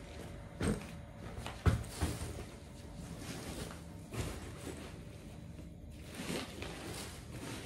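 Handling noise from a canvas backpack being turned over and shown: fabric rustling with several short knocks, the loudest just under two seconds in.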